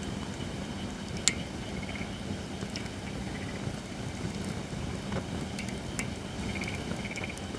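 Holly firewood burning in a campfire: a steady low rumble with scattered crackles and pops, one sharp loud pop about a second in.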